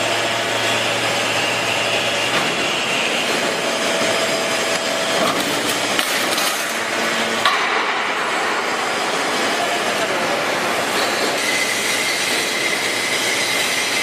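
Hydraulic scrap metal baler running: a steady mechanical noise from its hydraulic power unit, with a couple of sharp metallic clicks around the middle and a higher whine coming in near the end.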